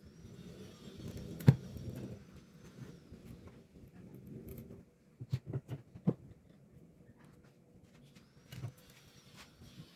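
Knocks and taps on wood during carpentry: one sharp knock about a second and a half in, a quick run of taps around five to six seconds, and another knock near the end.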